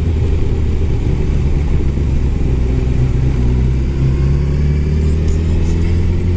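Honda CBR1000RR's inline-four engine running as the bike rolls slowly, then pulling harder with a rising pitch in the last couple of seconds. A heavy low rumble of wind on the microphone lies over it.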